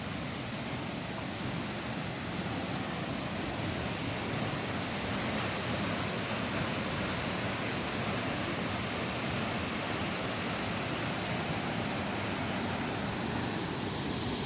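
Waterfall's falling water rushing steadily, growing slightly louder a few seconds in.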